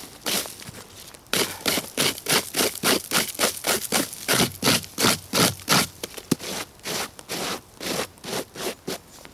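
A stick scraped in quick, repeated strokes across dry forest-floor litter of twigs and needles, about three strokes a second, clearing it down to bare soil. Near the end come softer, slower brushing strokes by hand over the same ground.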